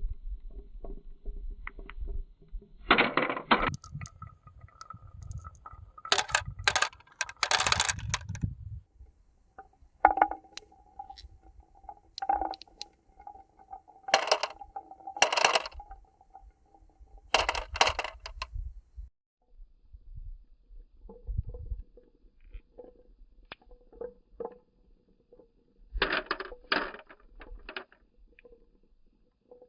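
Marbles rolling and clattering down a marble run, with bursts of rapid clacks and rattles as they drop and knock against the track, and a faint rolling hum in between.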